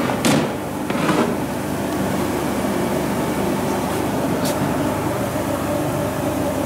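Steady mechanical hum of running workshop machinery, with two short noises about a second apart near the start and a brief hiss a little past the middle.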